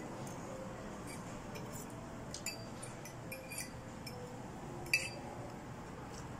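Fork clinking now and then against a plate while eating, a few light clicks with the sharpest about five seconds in, over a steady restaurant room hum.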